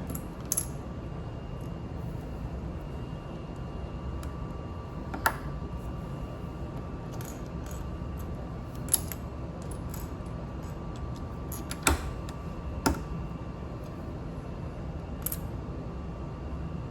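Plastic LEGO pieces being handled, giving a handful of separate sharp clicks a few seconds apart over a steady low background hum.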